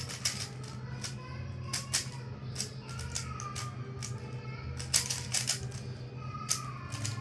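Rubik's cube being turned quickly, its plastic layers clicking and clacking irregularly over a steady low hum.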